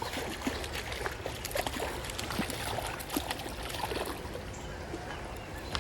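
Creek water running and trickling, with scattered small clicks and splashes over it.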